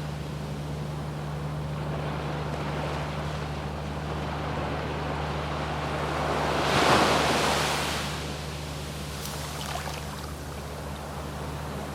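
Surf washing onto a sandy beach in a steady hiss. One wave breaks louder about seven seconds in, followed by faint crackling.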